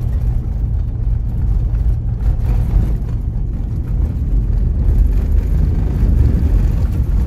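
Steady low rumble of a vehicle driving along an outback gravel road: tyre and wind noise heard from inside the vehicle.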